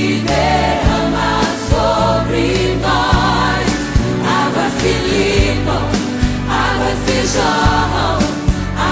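Christian gospel song with choir singing over a steady beat and sustained bass.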